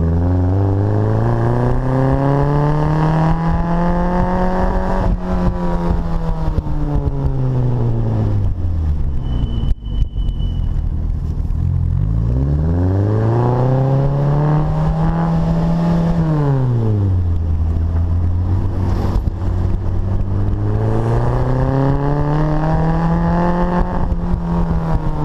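Bugeye Austin-Healey Sprite's 1275 A-series four-cylinder running through a performance exhaust, pulling up through the revs and easing off three times. There is a sharp click about ten seconds in.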